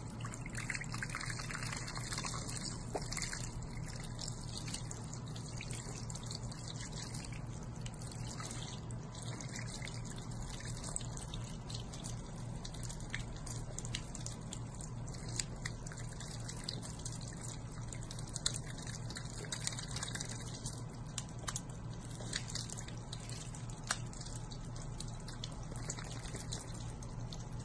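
Water spraying steadily from a garden hose nozzle onto concrete, with scattered small drips and splashes.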